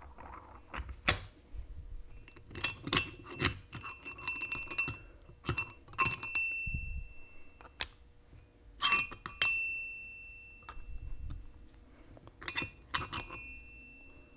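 Metal clutch plates and side-gear parts of a Dana 44 Powr-Lok limited-slip differential clinking against each other as they are handled and set down, about a dozen sharp clinks, several leaving a short metallic ring.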